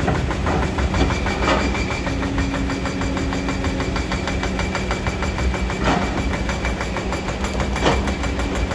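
Kobelco hydraulic excavator's diesel engine running steadily under work, with a fast even clatter and three sharp metal clanks: one about a second and a half in, one near six seconds and one near eight seconds.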